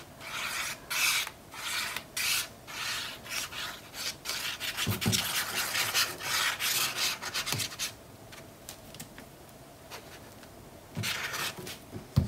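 Dry rubbing and scraping on paper and cardstock in quick, repeated strokes for about eight seconds, then a quieter stretch and another short burst of rubbing near the end. A few soft low thumps come in between.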